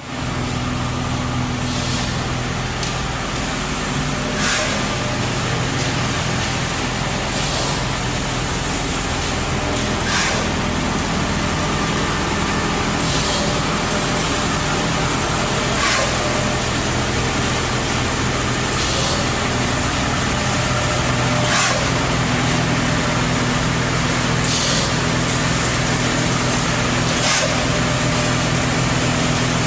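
Egg tray production line machinery running steadily with a low hum, and a short hiss about every three seconds.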